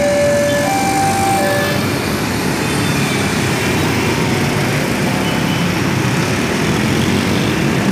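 A level-crossing warning alarm sounds two alternating tones and stops about two seconds in, the sign that the crossing is reopening. A dense mass of motor scooters and cars runs across the tracks throughout.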